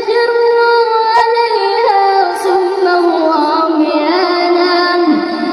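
A woman's voice reciting the Quran in a melodic tajweed style, drawing out long held notes with slow ornamented turns of pitch.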